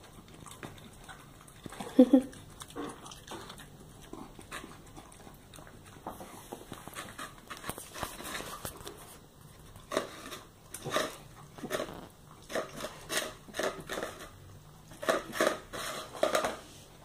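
Dog licking and eating from a clear plastic lid on a tile floor. The lid knocks and scrapes on the tiles, with a loud sound about two seconds in and a quick run of clicks and knocks in the second half.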